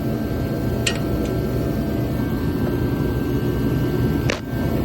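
A steady low rumble, like a fan or air-conditioning unit running, with two brief sharp clicks: one about a second in and a louder one near the end.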